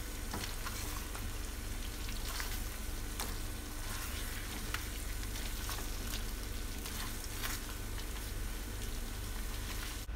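Thick chicken-wing sauce sizzling steadily in a nonstick wok on low heat as it reduces toward dry, stirred with a wooden spatula, with a few light clicks of the spatula.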